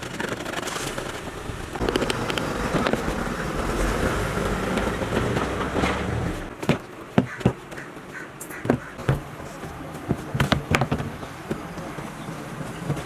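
A steady low hum and noise for about the first six seconds, then a string of sharp, irregular clicks and snaps, typical of upholstery hand work on a chair.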